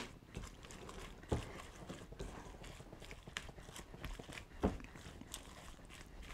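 Silicone spatula stirring grated beets and dressing in a glass bowl: faint, irregular scraping with a few sharper taps against the glass.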